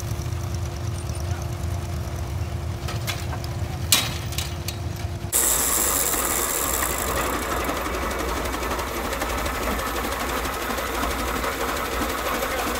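A tractor engine running steadily, with a sharp click about four seconds in. About five seconds in the sound changes abruptly to the louder, hissier steady running of a large early Reeves 40 tractor.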